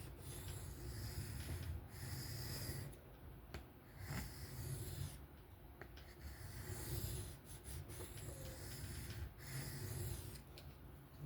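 Knife blade of 154CM steel being drawn by hand across an Atoma diamond sharpening plate: repeated rasping strokes in runs of one to two seconds, with short pauses between them, grinding one bevel until a burr forms on the other side of the edge.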